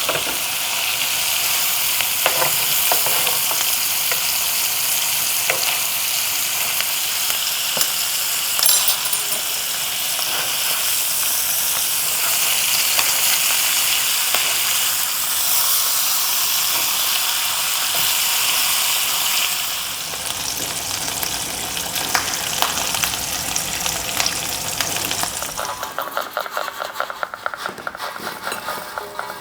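Food sizzling in a hot frying pan with butter: a steady frying hiss that weakens about two-thirds of the way through and thins into scattered crackling near the end.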